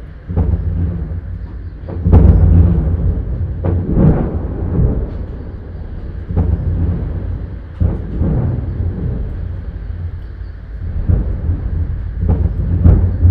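Artillery fire: a series of heavy booms, each followed by rolling rumble, the loudest about two seconds in and near the end.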